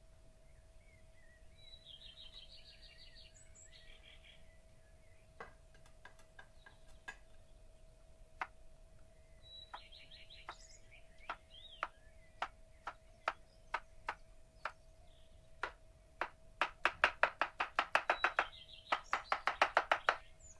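Chef's knife slicing a cucumber on a wooden cutting board: single knocks of the blade on the board every second or so, speeding up near the end into fast chopping of several strokes a second. Birds chirp briefly twice in the background.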